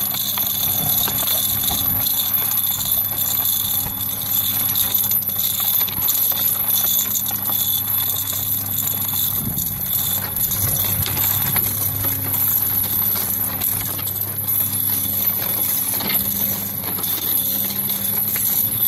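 Metal chain traces of a dog's cart harness jingling and clinking steadily as the harnessed dog hauls an empty plastic basket over concrete at a walk.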